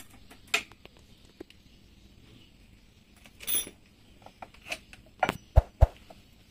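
Small metal outboard-motor parts and tools clinking and knocking on a steel bench as they are handled, with a brief scrape midway and two sharp knocks in quick succession near the end.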